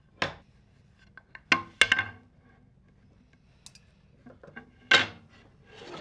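Maple boards being handled on a wooden workbench: a few sharp wooden knocks and clacks as they are picked up and set down, a cluster about two seconds in and the loudest about five seconds in.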